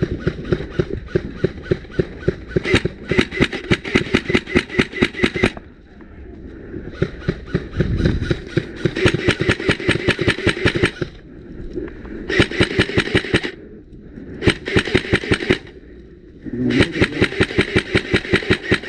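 LCT AK-12 electric-blowback airsoft rifle firing full-auto, in about five long strings of rapid shots with short pauses between them, the first lasting about six seconds.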